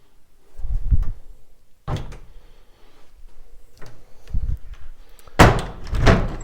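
Wooden doors of an antique pine wardrobe being handled and shut: a few low knocks and a click, then a louder clunk and rattle about five and a half seconds in.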